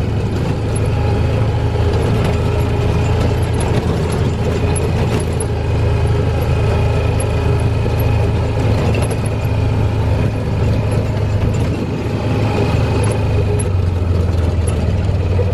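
Side-by-side utility vehicle's engine running steadily as it drives along, a continuous low drone.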